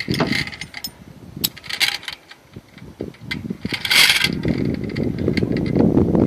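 Metal clicks and clanks, like gear being handled and clipped, with a rushing noise that builds about three and a half seconds in.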